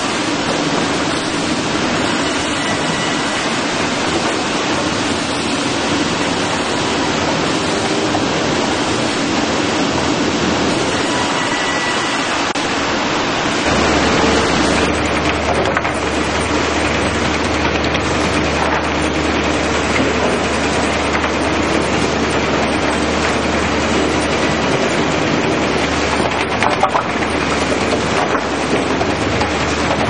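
Sawmill production line running: steady loud mechanical noise of chain transfers and live-roll conveyors moving lumber through the mill. A low steady hum sets in about fourteen seconds in.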